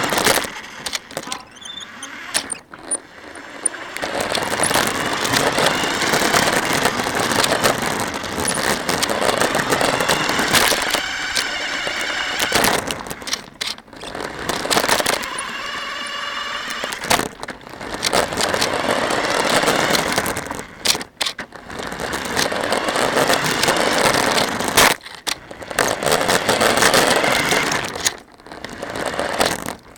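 Radio-controlled car driving in spurts, heard from a camera mounted on it: a noisy rush of motor and wheels over the ground with a faint whine, cut by several brief pauses.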